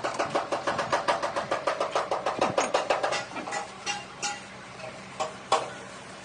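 Rapid, evenly paced knocking, about six strikes a second, thinning out after about three seconds into scattered single knocks, one louder near the end. The knocks are struck on metal in a welding and repair workshop.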